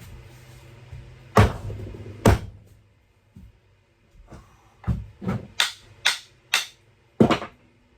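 Sharp wooden knocks as an axe head is driven onto its wooden handle to hang it. There are two heavy blows, then a quicker run of about six more.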